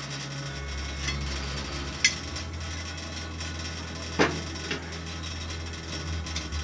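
A few sharp metallic knocks and clicks from hands working on the boiler's pumps and piping, the two loudest about two and four seconds in, over a low steady hum that comes up about half a second in.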